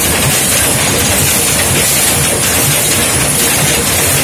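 Screw-making machine running, with a loud, steady mechanical clatter and a repeating beat.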